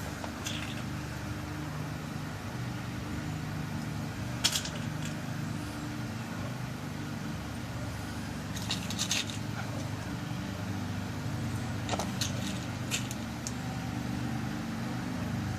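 Scattered small metallic clicks and ticks as new lock pins are dropped into a lock cylinder's pin holes during rekeying, over a steady low hum.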